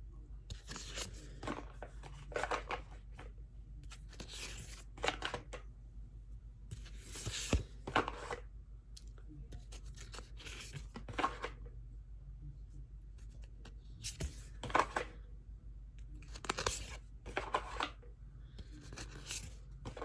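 Cardstock oracle cards being handled one at a time, each a short papery swish or slide as a card is moved off the deck, irregularly every second or few.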